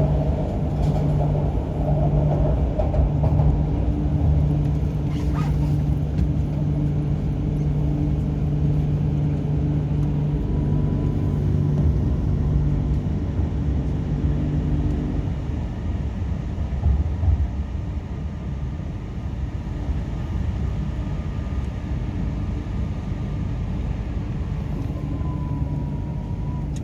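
MTR Kwun Tong Line Q-Train running on its line with a steady rumble and a low steady hum. The hum cuts out about 15 s in, leaving the rumble and a faint thin whine that dips in pitch near the end, as the train runs in toward the station.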